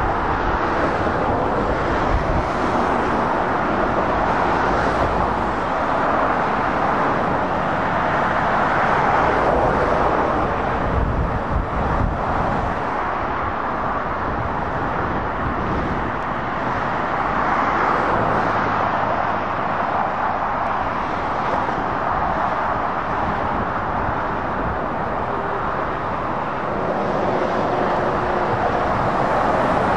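Dual-carriageway traffic passing close by: lorries and cars with steady tyre roar and diesel engine noise that rises and falls gently as vehicles go by.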